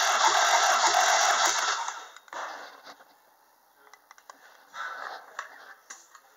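Honda R20A2 2.0-litre four-cylinder engine turned over on its starter for a compression test: a steady whir with a regular beat of about three pulses a second that stops about two seconds in. Afterwards only light handling and scraping sounds are heard.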